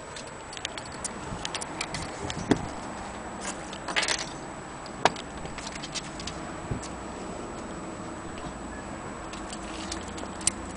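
Scattered, irregular light clicks and knocks over a steady hiss, the loudest a sharp click about five seconds in; no even ticking rhythm.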